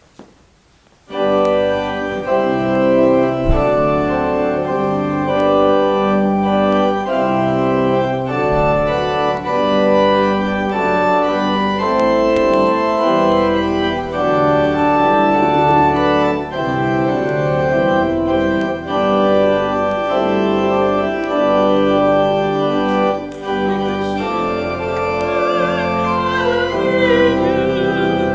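Organ enters about a second in, playing sustained chords for the offertory hymn. A singing voice joins in near the end.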